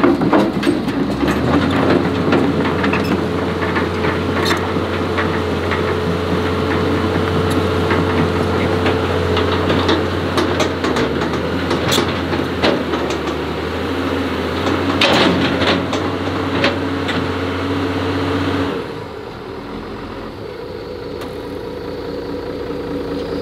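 Engine of a piece of heavy equipment running steadily, with repeated sharp metal clanks and knocks. About nineteen seconds in the low hum cuts off and the sound drops to a quieter, steady running.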